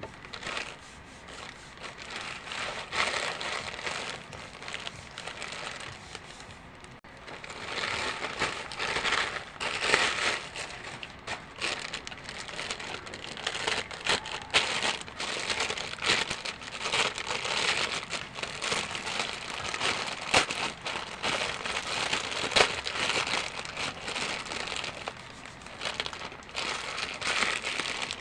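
Plastic packaging crinkling and rustling as a courier mailer pouch and a clear plastic bag are handled, with many sharp crackles; it eases off briefly about a quarter of the way in, then grows busier again.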